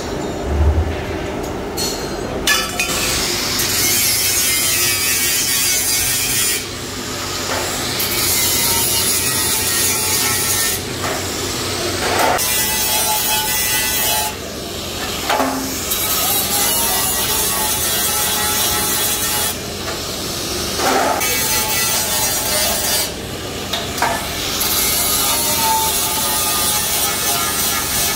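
Angle grinder with an abrasive disc grinding rust off a pressed-steel motorcycle seat base, starting about two seconds in. It runs in long passes broken by several short breaks where the disc eases off the metal and only the motor's whine is left.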